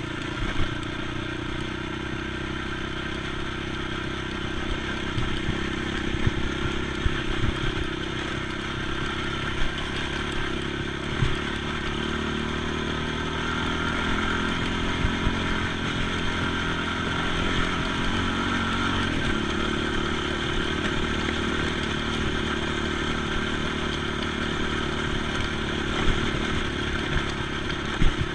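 ATV engine running steadily while riding, its pitch shifting a little in the middle as the throttle changes. Sharp knocks and clatter come now and then.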